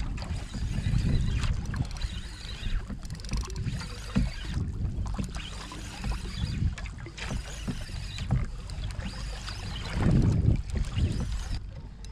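Wind buffeting the microphone and sea water moving around a kayak: an uneven low rumble that swells and eases in gusts, loudest near the end.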